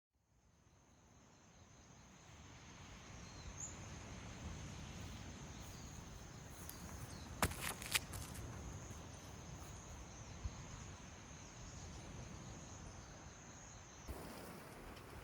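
An insect trilling steadily at one high pitch over low outdoor hiss, fading in at the start, with a few sharp clicks about halfway through. Near the end it cuts to a louder, even rushing noise.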